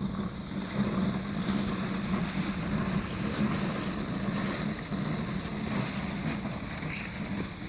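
Lawnmower on the move, a steady mechanical noise with a low hum.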